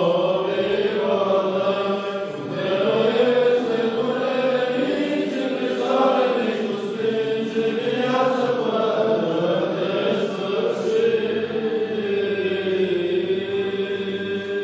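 Orthodox church chant: voices singing a continuous liturgical melody with long, gently wavering held notes.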